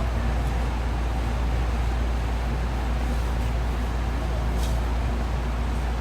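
Steady low hum and rumble inside a JR West 207 series electric commuter car, with a faint short tick near the end.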